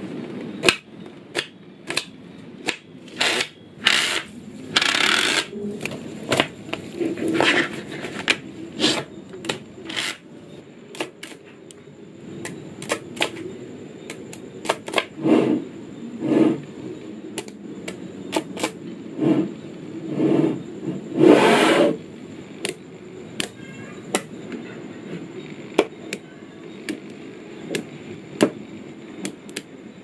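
Small neodymium magnetic balls clicking and snapping together as they are handled and pressed into blocks, with sharp clicks at irregular intervals and a few longer runs of clatter, the loudest about two-thirds of the way in.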